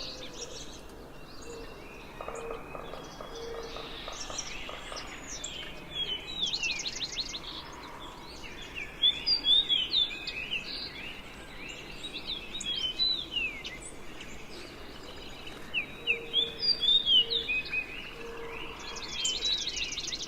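Fox sparrow singing its rich, musical song of slurred whistled notes, phrases of about two seconds repeated every few seconds, with a dark-eyed junco's fast ringing trill in between and again near the end.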